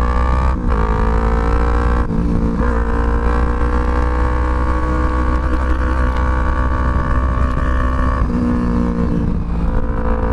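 Yamaha YZF-R25 parallel-twin engine through a Pro Speed MF Black Series aftermarket exhaust, pulling hard under acceleration. The note breaks briefly for upshifts about half a second and two seconds in, then rises slowly in pitch on a long pull, with two short dips near the end.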